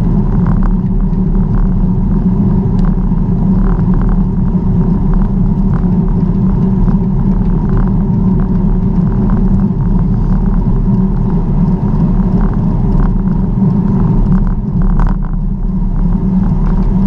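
Steady wind and road rumble on a camera riding along on a bicycle, with frequent light rattles and clicks.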